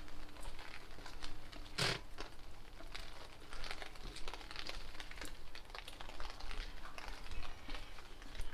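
Raindrops ticking and crackling irregularly close to the microphone, with one louder knock about two seconds in, over a low wind rumble.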